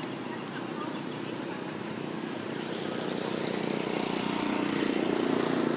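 A motor engine drones steadily in the background and grows louder through the second half.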